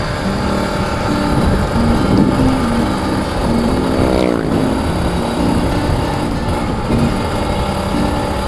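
Kawasaki Ninja RR two-stroke motorcycle engine running under way, mixed with wind and road noise. About four seconds in, a pitch sweeps downward.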